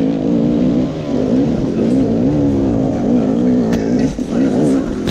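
Enduro motorcycle engine ridden down a rocky trail, its revs rising and falling continually with the throttle, with a few knocks from the bike.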